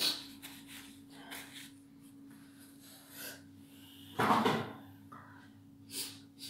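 Small handling sounds: a tissue being crumpled and light knocks and rustles, with one louder rustle about four seconds in, over a steady low hum.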